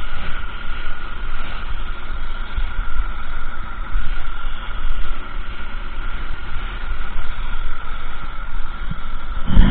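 Paint-spraying air equipment, an air compressor and spray gun, running steadily with a constant whine. A loud thump comes near the end.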